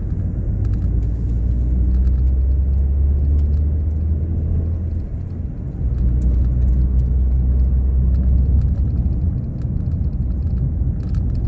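Ford Fiesta Mk7's petrol engine and road rumble heard from inside the cabin while driving, a steady low drone that dips briefly about five seconds in, then picks up again.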